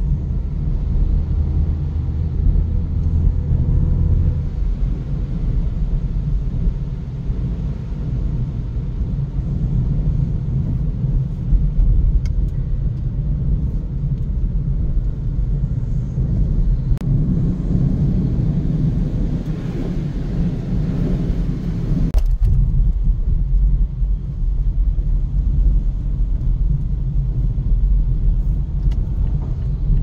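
Car cabin noise while driving on a wet road: a steady low rumble of engine and tyres, heard from inside the car.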